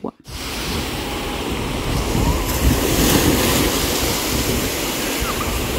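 Small sea waves washing and breaking on a sandy shore, with wind rumbling on the microphone. The sound starts just after a cut and then runs steadily.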